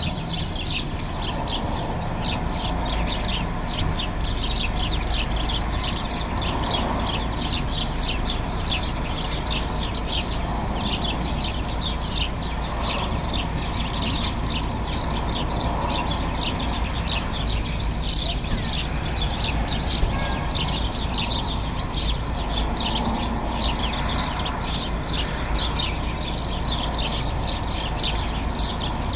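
A flock of house sparrows chirping continuously, many short chirps overlapping one another, over a low steady rumble.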